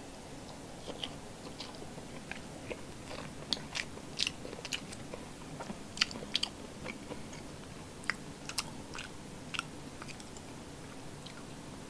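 Close-up eating sounds: a person chewing a mouthful of rice and paksiw milkfish belly, with scattered short wet mouth clicks and smacks.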